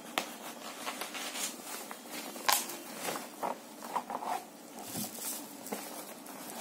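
Cardboard carton and plastic wrapping rustling and scraping as the speakers are pulled out of the box, with scattered clicks and knocks, the sharpest about two and a half seconds in.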